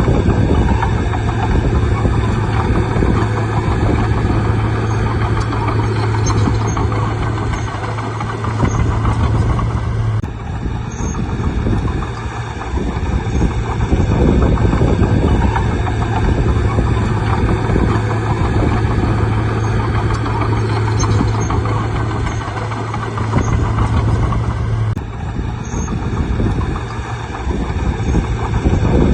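Bulldozer's diesel engine running with a steady low drone over heavy mechanical noise. The sound changes abruptly twice, about ten seconds in and again near the end.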